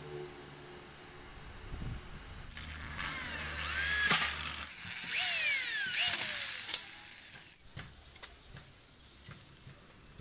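Electric drill boring through thin sheet metal in two runs of a couple of seconds each, the motor's pitch rising as it spins up and falling as it winds down.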